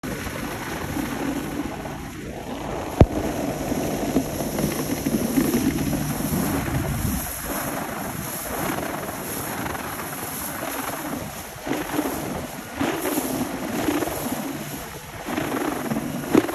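Wind buffeting the microphone and water rushing and splashing past an electric hydrofoil board under way, with one sharp click about three seconds in.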